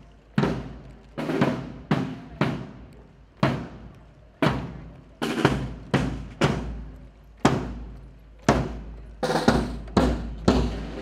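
A marching band's bass drum and snare drums beating a marching cadence, about one stroke a second with some strokes in quick pairs.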